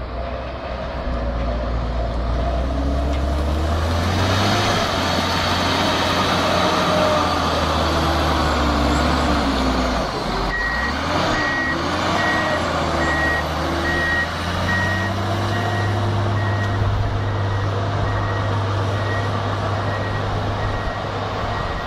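Tracked snow groomer's diesel engine working hard, revving up and down as it pushes avalanche snow. From about halfway through, its reversing beeper sounds over and over in a steady rhythm.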